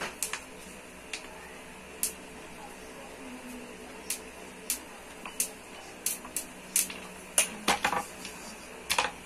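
Irregular sharp metallic clicks and clinks of a hand tool on the bolts and metal fittings of an office chair's armrest and seat plate during assembly, with a quick run of clicks about three-quarters of the way through.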